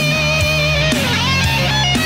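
Rock music with an electric guitar lead: one held note with vibrato that slides down about a second in, followed by a quick run of short notes, over a steady bass line.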